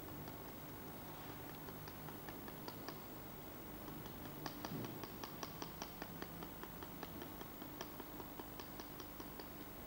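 Light, irregular clicking taps, a few a second and thickest in the middle, as a wooden stick knocks against a hand-held funnel made from a cut plastic bottle. A faint steady hum runs underneath.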